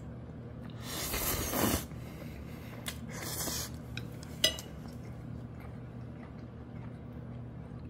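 Saucy black-bean (jjajang) ramen noodles lifted with wooden chopsticks and dropped back onto the plate, two soft wet rustles of about a second each. About four and a half seconds in, a sharp click as the chopsticks are set down on the ceramic plate. A low steady hum runs underneath.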